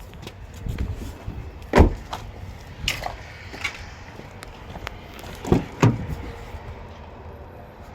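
Clunks and knocks from a 2014 Subaru Crosstrek's doors being handled and shut, the loudest about two seconds in, then one near three seconds and two close together past five seconds.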